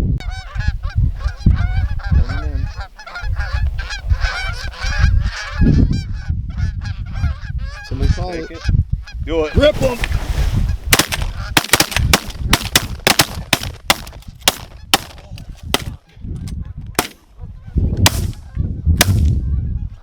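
Geese honking, many overlapping calls at once. In the second half the honks give way to a quick, irregular run of short, sharp clucks.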